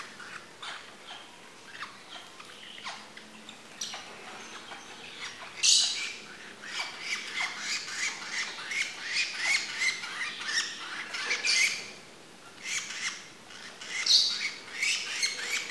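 Young lovebirds chirping and squawking in short, shrill calls. The calls are sparse at first, then come in quick runs from about six seconds in, with the loudest calls near six, eleven and fourteen seconds.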